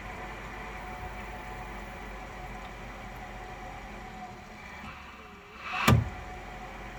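Grundfos SCALA2 water booster pump installation running with a steady hum and hiss, then one sharp, loud knock about six seconds in: the knocking sound the pump is known to make.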